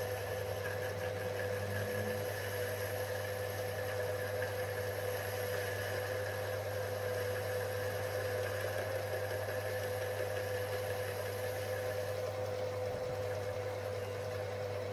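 Small bench lathe running at a steady speed, its motor and spindle giving a constant hum with a steady whine, while a boring bar takes light finishing cuts inside an aluminium part.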